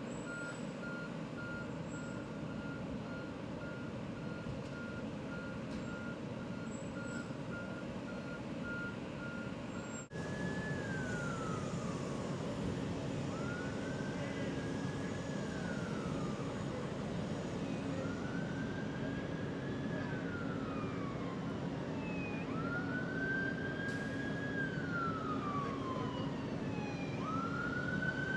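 A truck's reversing alarm beeps steadily over a low engine rumble. After a cut about ten seconds in, an emergency vehicle's siren wails in slow rising and falling sweeps, one every few seconds.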